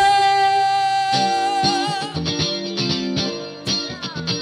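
A live rock band's electric guitars play a choppy, muted funk riff. A long held note rings over the start and fades out about two seconds in.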